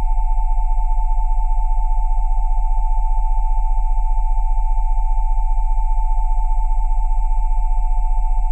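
Electronically generated sine tones at about 727, 787 and 880 Hz sounding together over a deep 20 Hz tone, held steady with an even, rapid pulsing.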